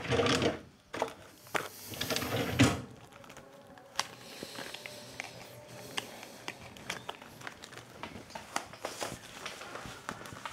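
Rustling and a few knocks, then a lighter struck again and again, a run of sharp, irregular clicks without catching: the lighter does not work.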